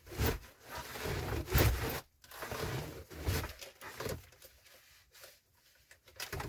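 Rustling and scraping of a person moving and handling things, a run of short scuffs that grows quieter after about four seconds.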